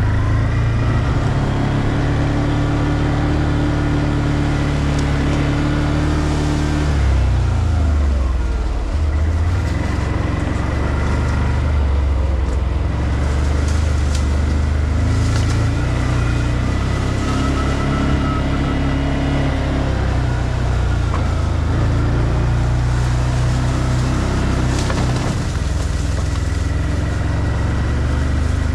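ODES 650 ATV engine running at low speed under a rider, a steady note that dips and rises again about eight seconds in.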